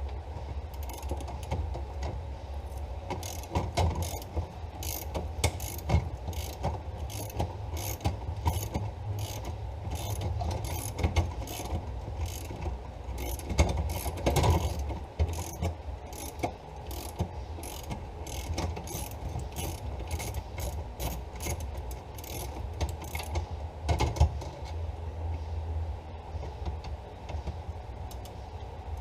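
Hand socket ratchet on a long extension clicking in repeated back-and-forth strokes as it turns a 13 mm bolt; the clicking dies out near the end.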